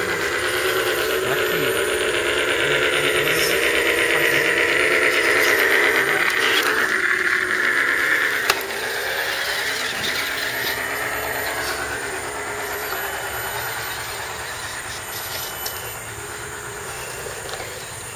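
Electric motors and geared drivetrains of scale RC crawler trucks whining as they climb a dirt trail, the pitch wavering up and down with the throttle. One sharp click about halfway through.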